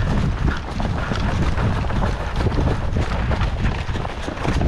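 Wind rumbling and buffeting on the camera microphone, a dense low noise that starts suddenly just before and keeps on steadily.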